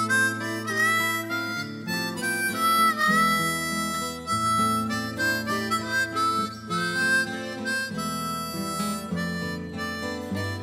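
Instrumental music: a harmonica plays a melody of held notes with bends, over accompaniment with sustained bass notes that change every few seconds.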